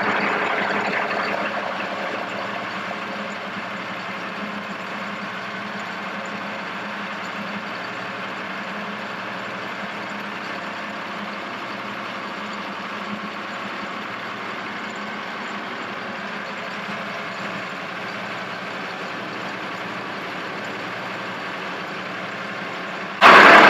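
Volvo Penta IPS 600 diesel engines running under way, heard from inside the engine room as a steady mechanical drone that eases slightly in the first couple of seconds. The engine room is loud enough that ear protection is worn.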